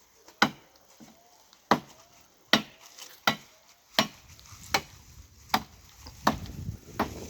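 A blade chopping into tree branches by hand: about nine sharp strikes at a steady pace of a little over one a second.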